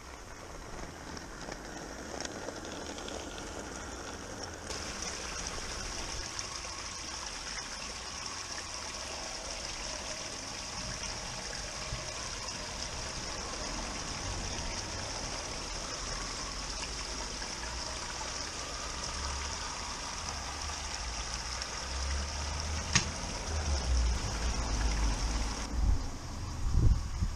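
Steady rush and trickle of running water from a garden pond, with a low rumble building over the last few seconds.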